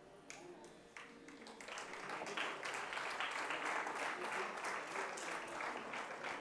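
Audience applauding: a few scattered claps about a second in, filling out into steady clapping by about two seconds.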